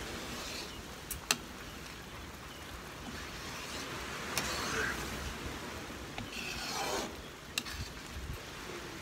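A utensil stirring and scraping through a thick, bubbling sweet jackfruit mixture in an aluminium pan, with a few sharp clicks of the utensil against the pan about a second in and wet swishing strokes later on.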